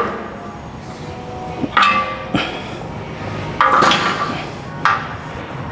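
Metal gym equipment clanking: a string of about five sharp knocks and clinks, some with a brief ringing tone, the loudest a little past halfway.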